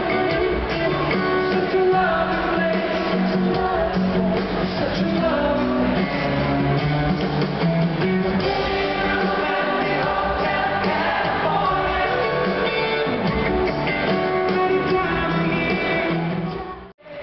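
Music: a song with singing over instruments, steady throughout, cutting out abruptly for a moment near the end.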